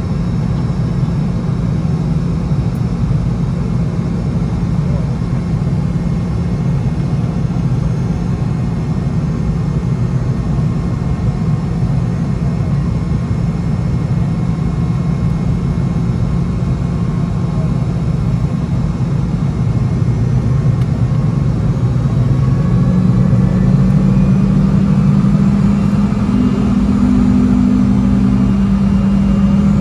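Cabin noise of a Boeing 717-200 on the ground, its rear-mounted Rolls-Royce BR715 jet engines running with a steady low hum. About two-thirds of the way through, a higher engine tone comes in and the noise grows slightly louder.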